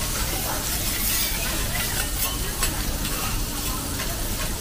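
Food sizzling steadily on a hot steel teppanyaki griddle, with metal spatulas scraping and clicking against the plate a few times as the vegetables are turned.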